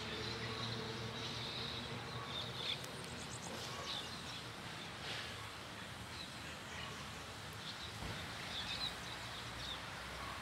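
Small birds chirping now and then over a steady outdoor background, with a faint low hum that fades out in the first few seconds.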